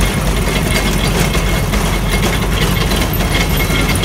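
A motor or engine running steadily, a loud low drone that does not let up.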